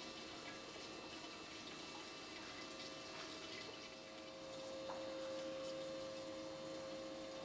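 Faint trickle of water flowing through the sand channels of a model river on a stream table, over a steady hum.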